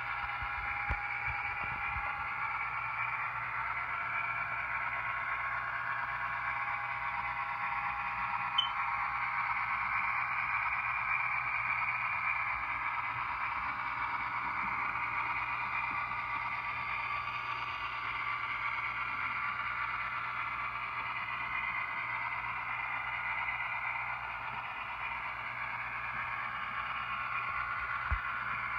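HO scale F7 diesel locomotive model running on the layout: a steady, tinny mid-pitched drone with a light click or two.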